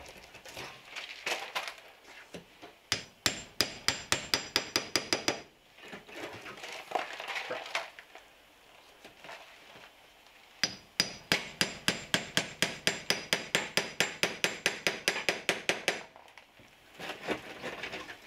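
Claw hammer tapping on a second claw hammer that is wedged behind the stucco edge as a pry bar, easing the stucco back. It comes in quick runs of light, ringing metal strikes, about five a second, with gritty scraping of stucco in the pauses between runs.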